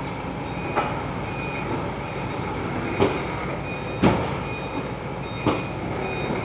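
Forklift engine running steadily while it manoeuvres, with a reversing alarm beeping on and off. About four sharp metallic clanks cut through it, the loudest about four seconds in.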